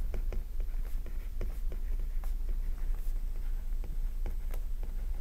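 Stylus writing on a tablet: the hard tip taps and scratches in quick, irregular little clicks as words are handwritten.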